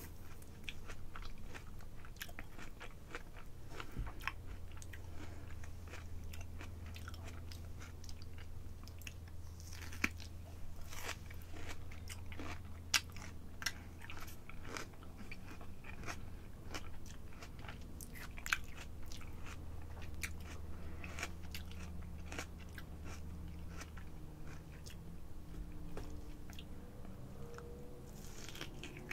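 Close-miked chewing and biting of ripe apricot flesh, with many short wet mouth clicks and smacks. A low steady hum runs underneath.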